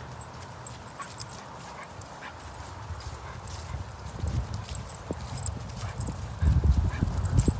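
Footsteps and soft thumps on a dog walk, growing louder and heavier over the last second or so, with faint light clicks throughout.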